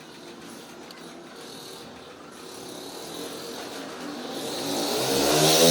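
A motor growing louder and rising in pitch over the last few seconds, after a low rubbing sound at the start.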